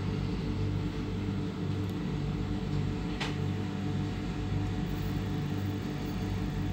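Steady low hum of a regional electric train heard from inside its passenger car as it rolls slowly through a station, swelling and fading in a slow pulse, with a single sharp click about three seconds in.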